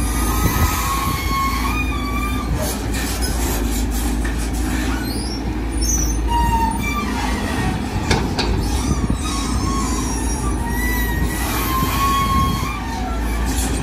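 Volvo EC210D long-reach excavator's diesel engine running steadily under hydraulic load as the boom, arm and bucket dig, with high wavering metallic squeals that come and go as the long arm moves.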